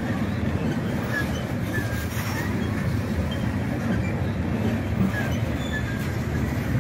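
Freight train of tank cars rolling past, a steady low rumble of steel wheels on rail, with a few brief faint high squeals from the wheels.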